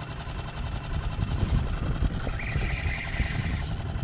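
Small outboard motor idling steadily, with wind buffeting the microphone. A higher hiss rises about a second and a half in and fades after about two seconds.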